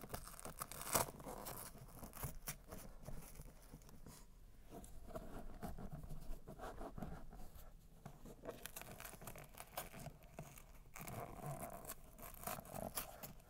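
Faint scratching and rustling of a car seat cover being pulled tight and its flaps fastened with Velcro, a run of short irregular scratchy noises with a louder one about a second in.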